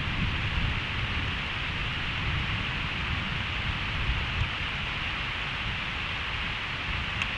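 Steady rain falling, picked up by a trail camera's microphone, with a low rumble of thunder underneath. A single sharp click near the end.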